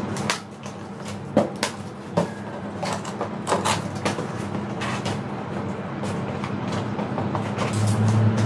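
Hands opening and handling a cardboard and plastic accessories box: a string of irregular sharp clicks and knocks over a low steady hum that gets louder near the end.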